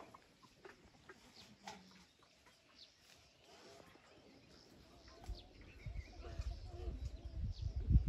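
Faint rural outdoor ambience with scattered short bird chirps and faint farm-animal calls. A low rumbling builds over the last few seconds.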